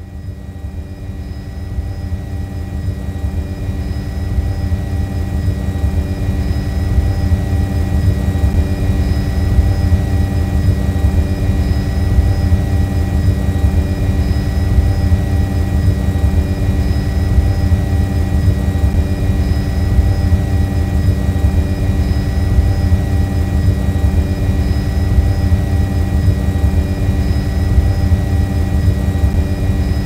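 Quadcopter drone's motors and propellers running with a steady buzzing hum over a low rumble, growing louder over the first few seconds and then holding level.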